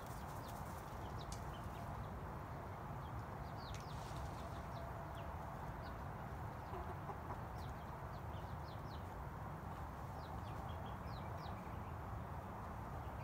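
Backyard chickens making soft, scattered short high chirps over a steady low background rumble.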